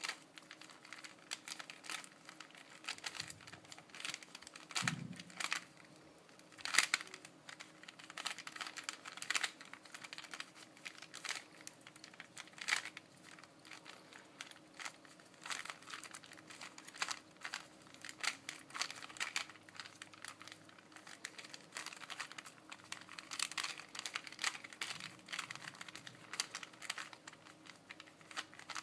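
Rubik's Cube being solved, its plastic layers turned in quick succession: an irregular run of clicks and clacks, several a second.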